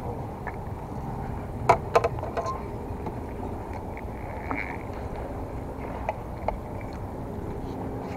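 A few sharp clicks and taps from a baitcasting rod and reel being handled, the loudest pair about two seconds in, over a steady low background rumble.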